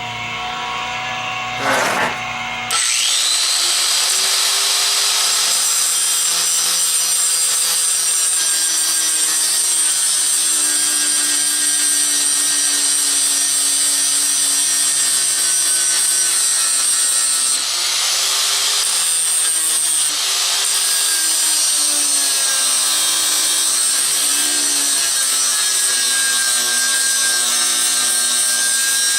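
Cheap Harbor Freight angle grinder switched on about three seconds in, spinning up with a rising whine, then grinding down the pins of a dirt bike chain; its pitch sags and recovers as the disc is pressed into the metal, easing briefly twice in the second half.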